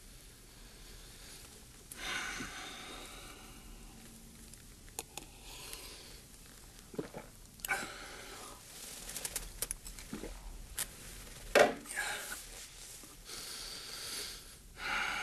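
Soft rustling and breathy noises, with several sharp clicks and one louder knock about three-quarters of the way through.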